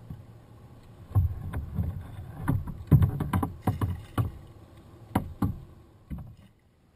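Irregular run of about a dozen thuds and splashes of water at the hulls of a WaveWalk W500 twin-hull kayak, stopping abruptly near the end.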